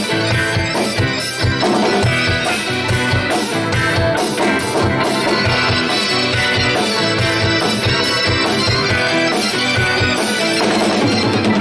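Rock band playing an instrumental passage between sung verses: a drum kit keeps a steady beat under keyboard chords.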